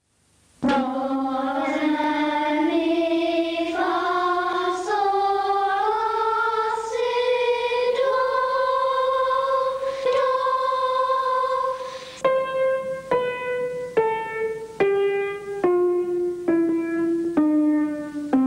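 Schoolchildren's choir singing together on an open vowel, the pitch climbing slowly by about an octave. Then they sing a descending scale of separate notes, roughly one a second.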